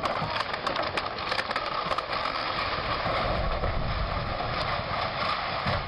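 Caterpillar hydraulic excavator demolishing a masonry house: its diesel engine running under load, with many cracks, crunches and knocks of concrete blocks breaking and rubble falling.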